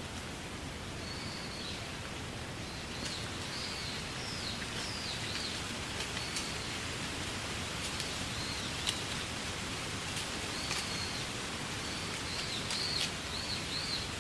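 Wind rustling through reed beds, a steady hiss, with a small bird giving short high chirps again and again from about a second in.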